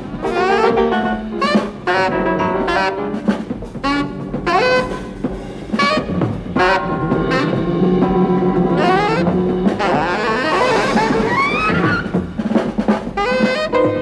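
Jazz-style film score with brass and saxophone playing short phrases over drums, some notes sliding up and down.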